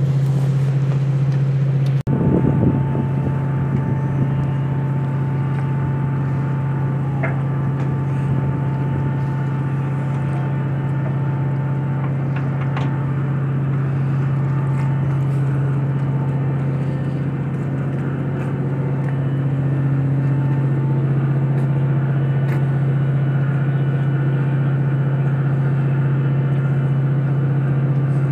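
Ship's diesel engine running with a steady low drone, broken briefly about two seconds in.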